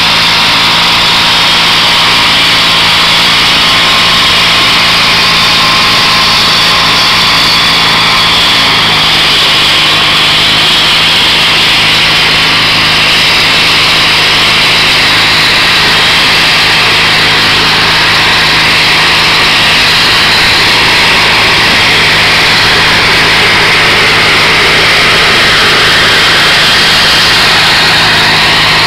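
Garden tractor engine running steadily while it drives a rear-mounted rotary tiller through wet garden soil. The engine note drops slightly about nine seconds in.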